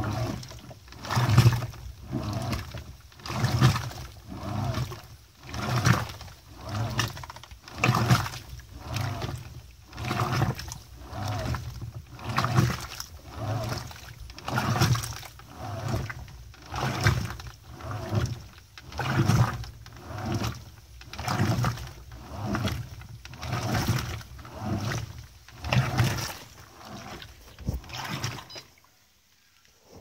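Electrolux LDD16 top-loading washing machine agitating at its extra-low water level: the agitator swings back and forth, sloshing water and clothes in rhythmic swishes about once a second, each with a low motor pulse. The agitation stops about a second and a half before the end.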